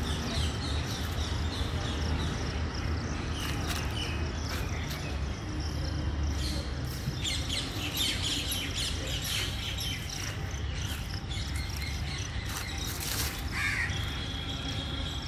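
Small birds chirping and calling over a steady low rumble, with a few sharp clicks.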